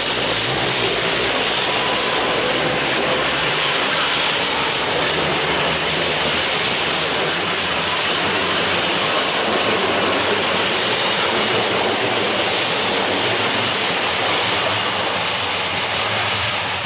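Class 334 electric multiple unit running past close by: a loud, steady noise of wheels on rail and the train's passing coaches.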